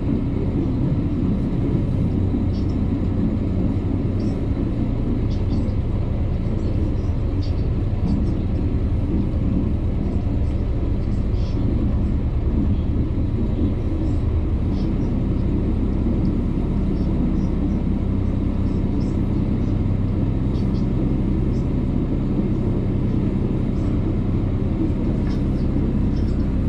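A small tour boat's engine running steadily: a constant low rumble with a steady hum.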